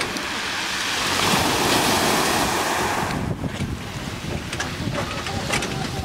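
Small waves washing onto a pebble beach: a rush of surf swells over the first three seconds, then eases into a lower wash with scattered clicks of stones. Wind buffets the microphone.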